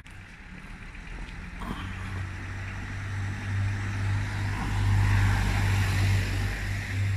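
An engine running, a steady low drone that starts about two seconds in and grows louder, with a rushing hiss that swells about two thirds of the way through.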